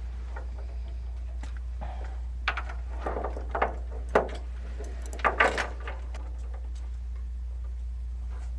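A steady low hum, with a handful of short knocks and scrapes about halfway through.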